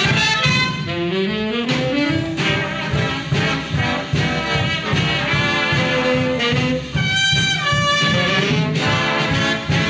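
Big band of trumpets, trombones and saxophones playing a swing arrangement, with a rising run in the lower horns about a second in.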